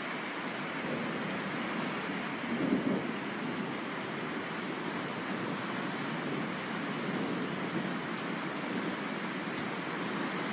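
Steady rain during a thunderstorm, with a low rumble of thunder swelling briefly about three seconds in.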